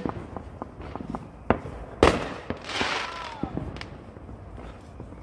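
Fireworks going off: scattered small pops, then one loud bang about two seconds in, followed by a crackling hiss lasting about a second.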